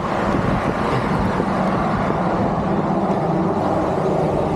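Road traffic: a steady rush of car tyres and engines passing on the road alongside.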